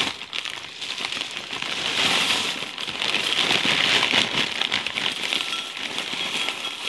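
Frosted Flakes pouring from their plastic bag liner into a bowl: a steady, dense rustle of many small clicks of flakes landing, mixed with the crinkle of the bag.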